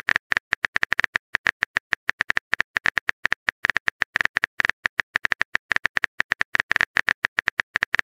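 Rapid keyboard typing clicks, an irregular patter of about eight to ten sharp keystrokes a second: the typing sound effect of a texting story while the next message is written.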